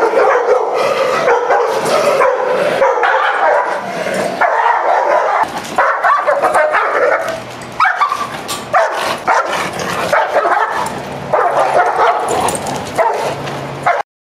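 A dog barking aggressively, bark after bark with almost no pause, stopping abruptly near the end.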